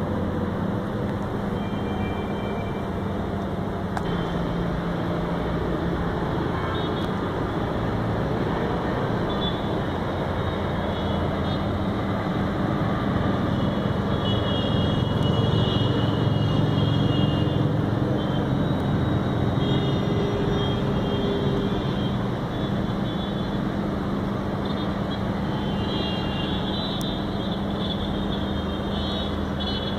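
Steady rumble of road traffic heard from high above, with a constant low hum running through it and faint high tones coming and going.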